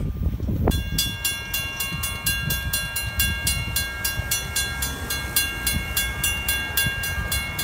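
Railroad grade-crossing warning bell starts ringing about a second in, quick even strikes about four a second with a ringing tone, over a low rumble. It is warning of an approaching train.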